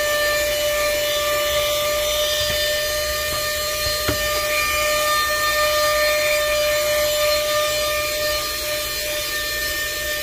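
Handheld vacuum running steadily with a constant high motor whine over the rush of air, sucking dust out of a PlayStation 4. A brief click about four seconds in.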